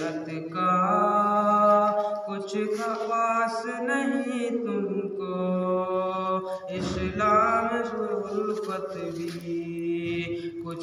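A man's voice singing an Urdu nazam unaccompanied, in long drawn-out notes that rise and fall.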